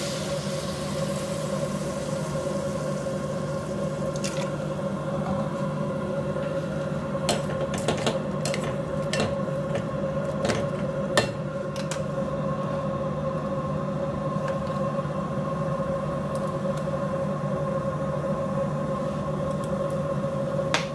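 Shrimp in butter and 7 Up bubbling in a pot, with a scattering of sharp pops and ticks a few seconds in, over a steady hum.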